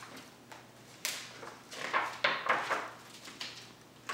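Hardcover picture book being opened and its pages turned by hand: a quick run of paper swishes and rustles, loudest about two seconds in.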